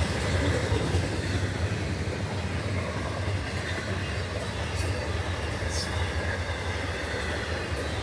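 Florida East Coast Railway intermodal freight train's double-stack well cars rolling past: a steady low rumble of steel wheels on rail, with a brief high squeal about six seconds in.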